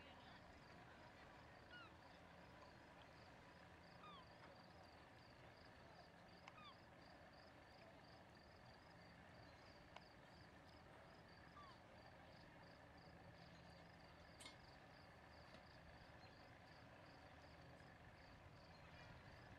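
Near silence: faint outdoor ambience with a soft high chirp repeating about twice a second, a low steady hum and a few short falling bird calls.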